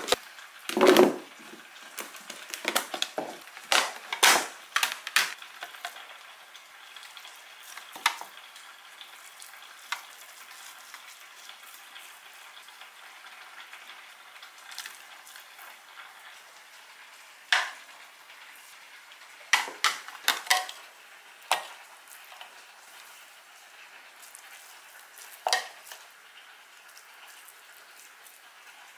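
Food sizzling steadily in a frying pan while it is stir-fried, with sharp clatters of a utensil against the pan, busiest in the first five seconds and again in a few short runs later on.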